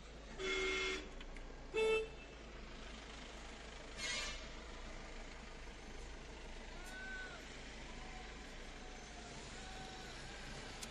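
Vehicle horns honk three short times in the first half, the second blast the loudest, over the steady hum of a moving car's cabin.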